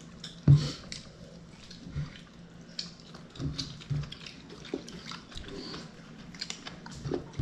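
People eating by hand from ceramic bowls: short wet chewing and smacking sounds and scattered small clicks of fingers and a spoon against bowls, with one sharp knock about half a second in.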